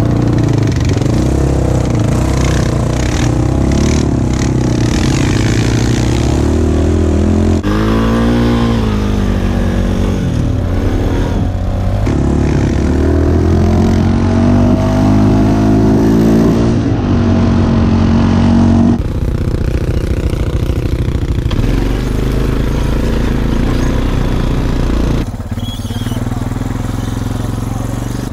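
ATV engines running under load on a trail ride, revving up and down so the pitch rises and falls. The sound changes abruptly about 8, 19 and 25 seconds in.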